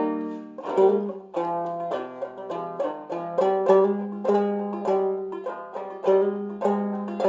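Five-string banjo tuned to open G minor (standard G tuning with the second string lowered to B flat), picking a slow melody of ringing plucked notes and chords, about two or three notes a second.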